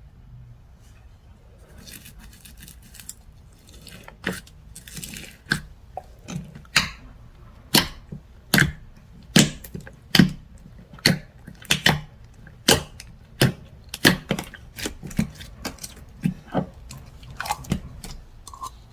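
Hands playing with slime: soft squishing at first, then sharp sticky pops and clicks about one or two a second from about four seconds in, as the slime is pressed and pulled.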